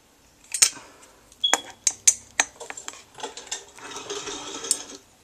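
A string of sharp metallic clinks and clicks, irregular and about ten in all, with a stretch of rougher rattling and scraping about three to five seconds in.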